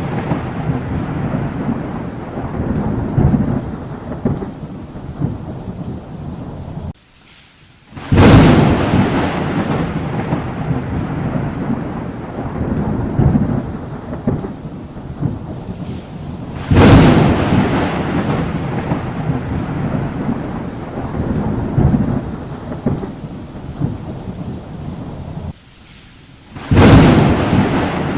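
Thunderstorm: three sharp thunderclaps, about 8, 17 and 27 seconds in, each rolling off into a long low rumble, over steady rain. The sound drops out abruptly for about a second just before the second and third claps.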